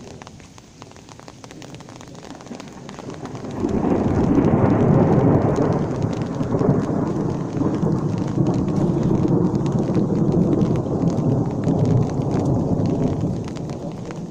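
Thunder rolling through steady rain. A loud, low rumble comes in about three and a half seconds in, carries on for some nine seconds and eases off near the end.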